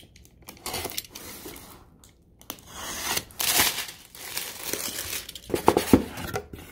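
Plastic shrink wrap being slit with a utility knife and pulled off a cardboard box, crinkling and tearing in irregular bursts, then the cardboard lid being opened with a few sharp clicks and taps near the end.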